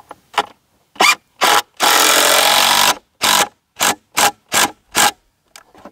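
Power drill run in a string of short pulses, with one longer run of about a second near the middle, as it drives into the birdhouse mount.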